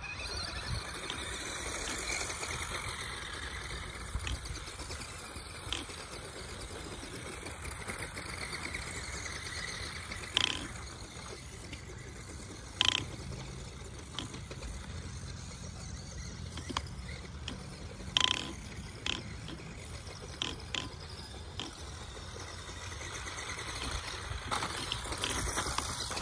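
Two stock Tamiya Grasshopper RC buggies driving on a dirt track: their small brushed 380 electric motors and gears running, with tyres on dirt and gravel. A few sharp knocks come about ten, thirteen and eighteen seconds in.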